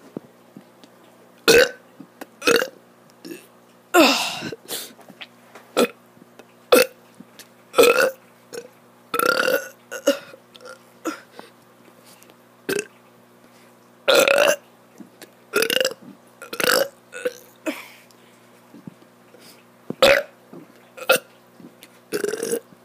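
A child burping over and over: about fifteen separate burps with short pauses between them, most brief and a few drawn out longer.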